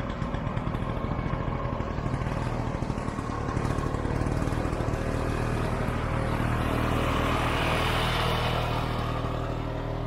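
1967 Ski-Doo Olympic snowmobile's 250 cc single-cylinder two-stroke engine running as the sled drives past close by, growing louder as it comes near and fading again near the end.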